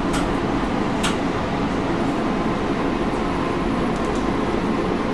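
Steady interior noise of a 115 series electric train car, heaviest in the low range, with two sharp clicks about a second apart near the start.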